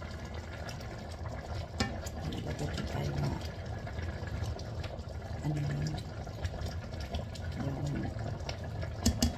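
Sinigang broth boiling in a stainless steel wok, with a ladle stirring through it and clinking against the pan a couple of times.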